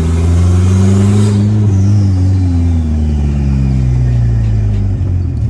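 Turbocharged Chevrolet Corsa pickup engine, running with no exhaust fitted, blipped once: the note rises for about a second, then falls slowly back over the next three seconds. A high whistle climbs with the revs and falls away after the peak. The open, exhaust-less engine makes a loud racket.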